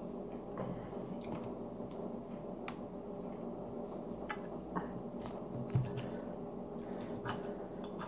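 Chewing and a few light clicks of a fork and knife against a plate, over a steady low hum. One dull knock on the table about six seconds in.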